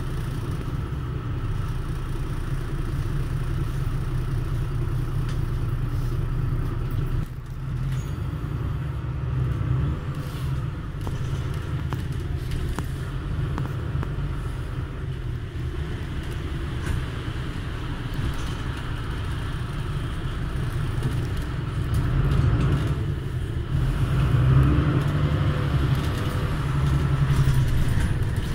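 Mercedes-Benz Conecto LF city bus heard from inside while driving: the OM926LA six-cylinder diesel and ZF 6HP502 automatic gearbox run with a steady low rumble. The sound dips briefly about seven seconds in and grows louder over the last few seconds.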